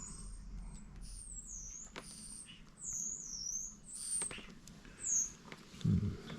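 Small clicks and taps of a car wiper switch being taken apart by hand, with a string of high squeaky chirps and a dull knock near the end.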